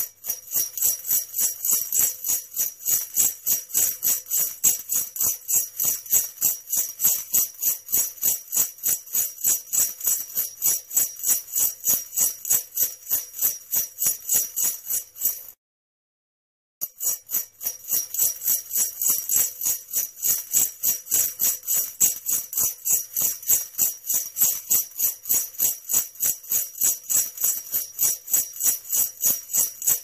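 Sleigh bells jingling in a steady shaking rhythm, about four to five shakes a second, with a break of about a second near the middle.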